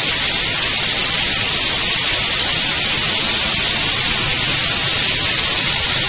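Harsh noise music (gorenoise): a steady, unchanging static hiss, heavy in the treble and thin in the bass.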